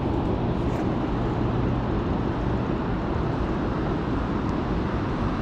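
Boat motor running steadily, a constant low hum under rushing wind and water noise.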